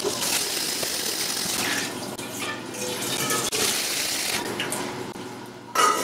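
Water running from a tap into a large metal cooking pot, filling it. A sudden clunk sounds just before the end.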